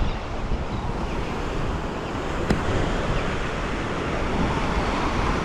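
Ocean surf washing onto the beach, a steady rush of breaking waves, with wind buffeting the microphone. A single short click about two and a half seconds in.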